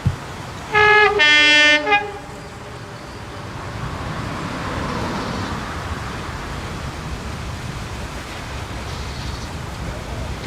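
Diesel locomotive's two-tone horn, sounded about a second in: a short higher note, then a longer lower note. After it, the rumble of the train builds and stays up.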